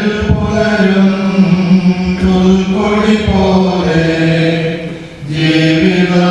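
A man's voice chanting a liturgical prayer in long held notes, amplified through a microphone; the chant breaks off briefly a little after five seconds and then goes on.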